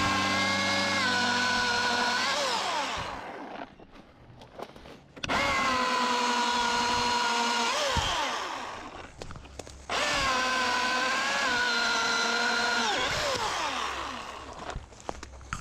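Cordless electric chainsaw run three times for a few seconds each, its motor giving a steady high whine that winds down in pitch each time the trigger is released.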